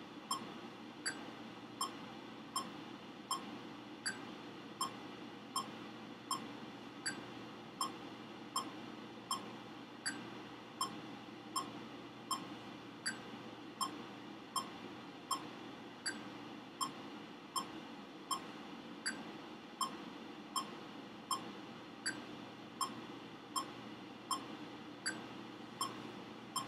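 Electronic metronome ticking steadily at about 80 beats a minute, every fourth tick louder as the accented downbeat.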